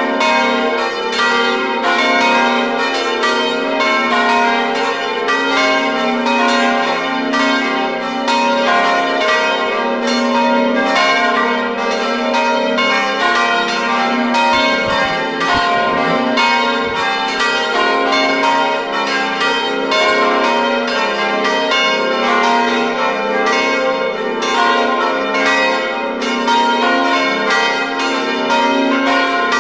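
Festive peal (distesa) of the Collegiata's five largest bronze bells, the F3-tuned bells cast by De Poli, swinging full circle on electric drives. They clang in a dense, continuous, overlapping stream of strikes.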